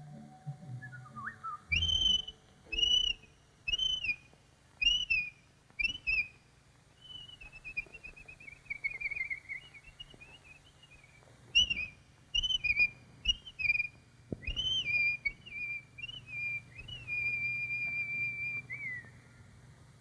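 Bird-call whistling on a cartoon soundtrack: a run of short chirping whistle calls, a long falling glide, then more calls ending in a long held note that drops away, over a faint low hum.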